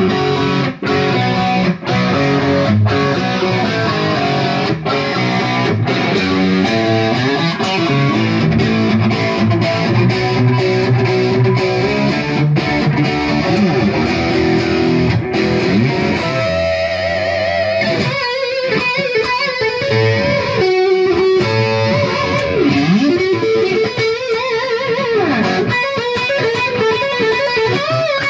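Fender Jaguar 60th Anniversary electric guitar played through an amplifier: a continuous run of picked notes and chords, with notes that waver and bend in pitch in the second half. The guitar is being tried out after a full rewiring of its circuit.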